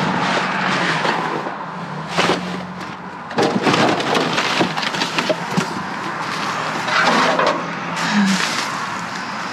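Junk being rummaged through in a dumpster: irregular clattering, knocking and rustling, the loudest bursts about two, three and a half and seven seconds in. A vehicle engine idles steadily underneath.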